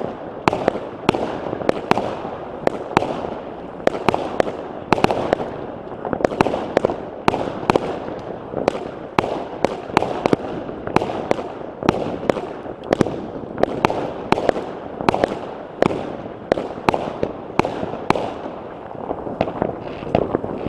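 A consumer fireworks battery firing shot after shot, with sharp bangs about two a second over a steady rush of noise.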